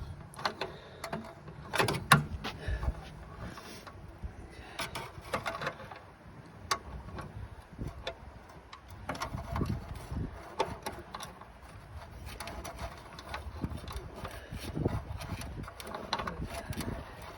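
Scattered small metallic clicks and knocks of hand tools and cable fittings being handled and tightened while fitting a bonnet release cable. The loudest is a couple of sharp knocks about two seconds in.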